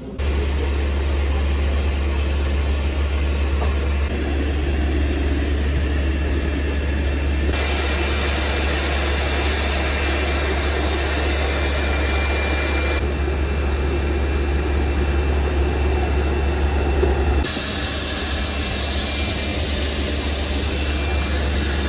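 Loud, steady jet-turbine whine and low rumble of aircraft on an airport apron, with abrupt shifts in tone several times where the footage cuts.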